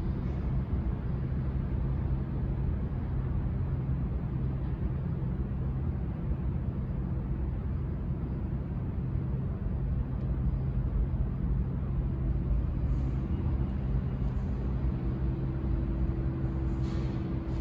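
Steady low rumble of a New York subway train in the tunnel as it approaches the station. A steady hum joins the rumble about two-thirds of the way through, and there is a short hiss near the end.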